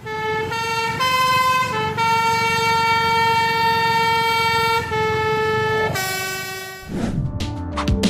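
Multi-tone 'telolet' bus air horn playing a short tune of held notes that step up and down in pitch, one note held for nearly three seconds. About seven seconds in it stops and music with clinking percussion begins.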